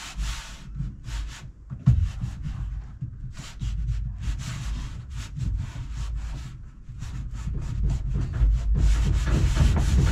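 Hands rubbing and pressing a covering sheet down onto a panel coated with contact adhesive: a run of short scuffing strokes, with a knock about two seconds in.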